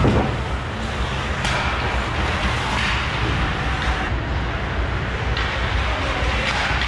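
Ice hockey game sounds in a rink: a steady noisy hum with a low rumble, broken by a few sharp knocks at the very start, about a second and a half in, and again past five seconds.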